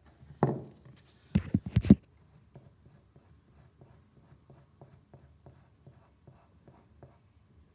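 A couple of loud knocks and handling thumps against the desk in the first two seconds, then light, even strokes on paper, about four a second, as a pencil sketch is reworked.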